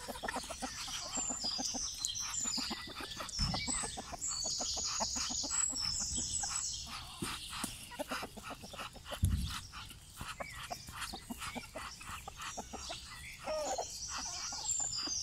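Free-range chickens clucking in short, irregular notes, with high-pitched bird chirping throughout. Two brief low thumps, about three and nine seconds in.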